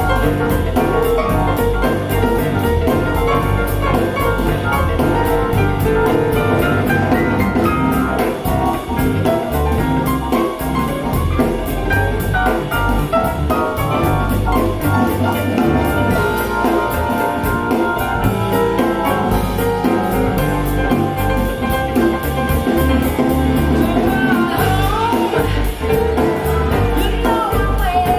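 Music played back through a pair of KEF LS50 Black Edition bookshelf speakers, running continuously with no breaks.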